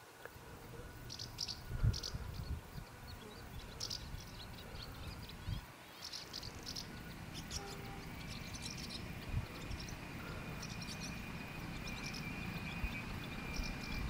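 Small birds chirping in short, irregular calls over a low background rumble, with a thin, steady high-pitched tone joining about halfway through.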